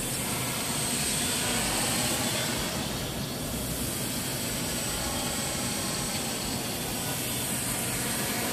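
Multirotor drone's electric motors and propellers humming steadily as it hovers and moves slightly in the air, heard from the ground.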